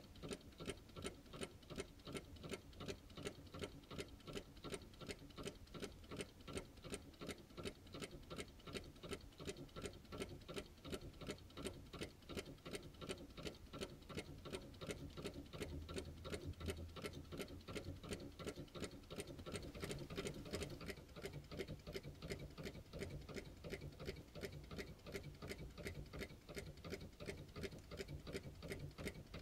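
Small beam-type Stirling hot air engine running steadily, its mechanism clicking evenly, several clicks a second, like a clock ticking.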